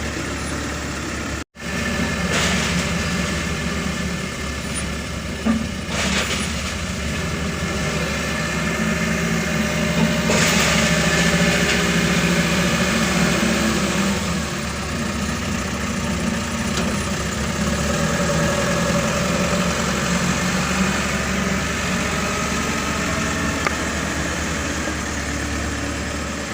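Diesel engine of an earthmoving machine loading sand, running steadily and working harder, louder and rougher, for a few seconds about ten seconds in. A momentary cut to silence comes just after the start.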